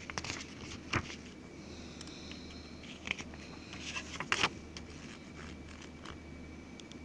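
Paper pages of a CD booklet being handled and turned: a few short rustles and taps, the loudest about a second in and around four and a half seconds in, over a faint steady hum.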